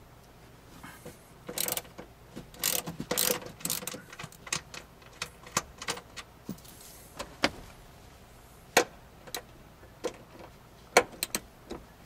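Socket ratchet wrench loosening a seat-track bolt on the floor of a car: short bursts of ratchet clicking and metal-on-metal clinks, busiest in the first few seconds, then single sharp clicks scattered through the rest.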